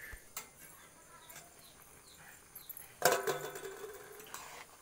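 A metal ladle clanking against a metal wok: scattered light clicks, then a loud ringing clang about three seconds in that fades over a second or so. Faint bird chirps can be heard before it.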